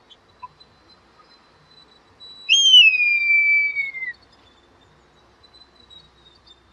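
Red kite calling once: a single whistled call that jumps up sharply, then glides down for about a second and a half.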